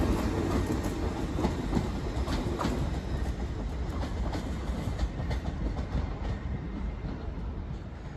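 LNER Class 801 Azuma electric train pulling away along the track, its running noise fading steadily, with a few faint clicks from the wheels.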